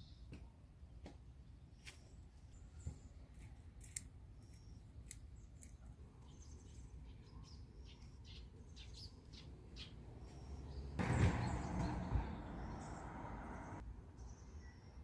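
Wild birds chirping and calling, short high notes scattered throughout. About eleven seconds in, a louder rush of noise lasts about three seconds and cuts off suddenly.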